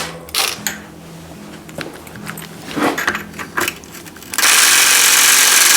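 Metal tools and loosened bottom bracket parts clinking and knocking on a bicycle frame, a scatter of sharp clicks, then a loud steady hiss starting about four seconds in and lasting about two seconds.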